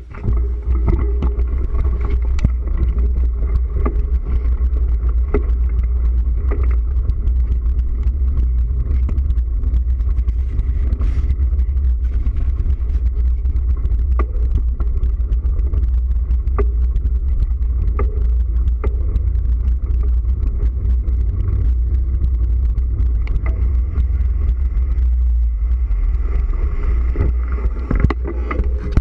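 Wind buffeting the microphone of a camera on a moving bicycle, a loud steady low rumble, with scattered clicks and rattles from the tyres running over gravel.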